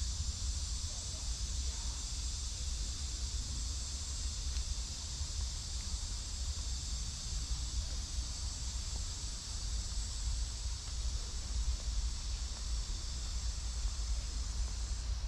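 Steady, high-pitched insect chorus in the trees, over a constant low rumble on the microphone.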